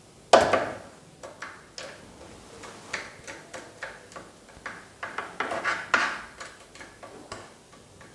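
A solder wire reel knocks down onto the metal soldering station. It is followed by irregular light clicks and crackles as solder wire is worked against the hot tip of the T12 soldering iron.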